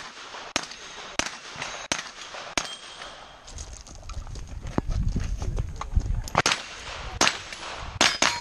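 Gunshots from a shooting match: single sharp shots about two-thirds of a second apart, then a faster string of shots near the end. A low rumble runs through the middle.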